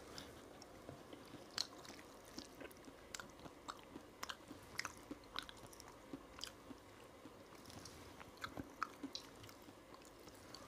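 Faint, close-miked chewing of rice and vegetable curry: irregular short mouth clicks several times a second, with no speech.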